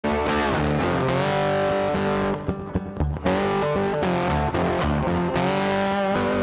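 Intro music led by guitar, with a brief drop in level about two and a half seconds in.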